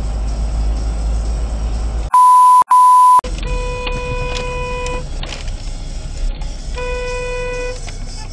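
Steady low road and engine rumble inside a moving car. About two seconds in, two loud edited-in censor bleeps replace the sound, then a car horn sounds for about a second and a half, and again for about a second near the end.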